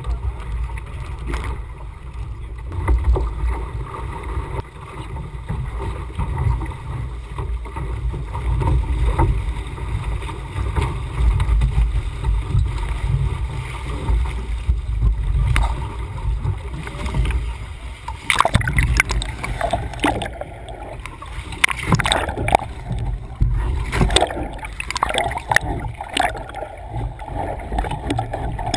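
Wind buffeting the microphone and water rushing against a Laser 2000 dinghy's hull as it sails heeled hard over. In the last third the boat capsizes: splashing, then gurgling and bubbling as the deck goes under water.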